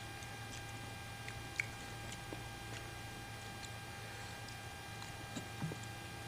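Quiet eating of bakso meatball soup: a few faint, scattered clicks and soft squishy mouth sounds of chewing, over a steady low electrical hum.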